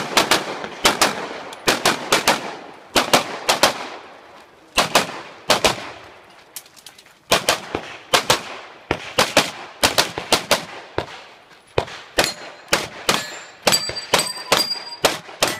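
Open-division competition pistol fired rapidly in quick pairs and strings of shots, with short pauses between strings. Near the end a ringing tone lingers after several of the shots.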